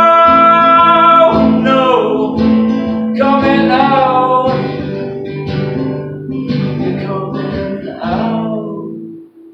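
Strummed acoustic guitar with a voice singing the last lines of a folk song, a long held note at the start. The song ends about nine seconds in as the final chord fades away.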